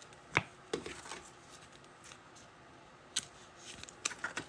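Trading cards being handled and flipped through, making a few soft flicks and taps, several of them close together near the end.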